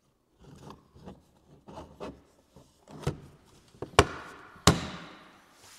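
3D-printed plastic organizer pieces scraping and rubbing as they are slid together along a dovetail joint by hand. Then come a few sharp plastic clacks, the loudest about four seconds in and again just after.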